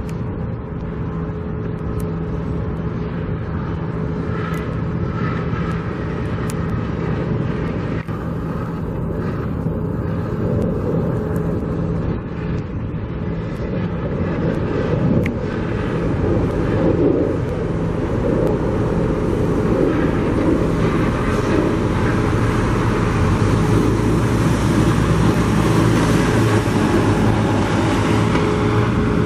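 Steady engine and traffic noise with a constant low hum, mixed with wind on the microphone, growing gradually louder.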